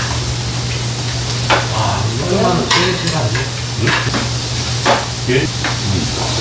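Food sizzling in a pan, with a string of sharp clinks of tableware and a steady low hum underneath.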